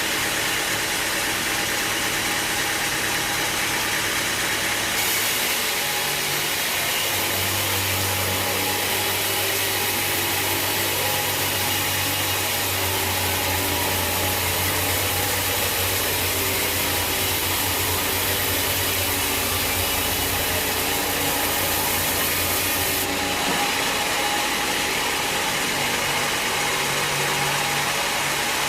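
Sawmill engine running steadily. From about five seconds in until about twenty-three seconds, a stronger hiss and a low hum join it, then drop away.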